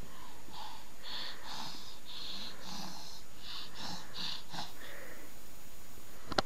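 A baby's wheezy, breathy laughter: a run of short, airy wheezes, about two a second. A sharp click comes near the end.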